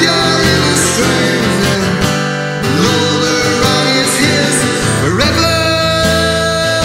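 A Tonk Bros parlour acoustic guitar strummed, with a man singing over it.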